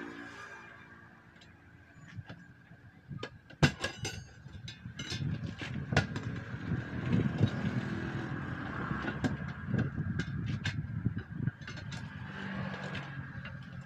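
Steel tyre levers clinking and knocking against a truck wheel's steel rim as a tyre bead is levered, at irregular intervals, over an uneven low rumble.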